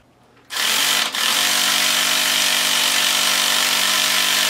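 Two-stroke nitro engine of an RC monster truck starting about half a second in and then running steadily at a high, buzzing idle.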